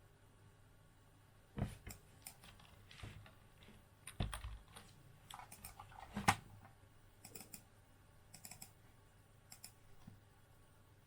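Scattered clicks and taps on a computer keyboard and mouse, irregular and faint, with a few louder clicks in the first half.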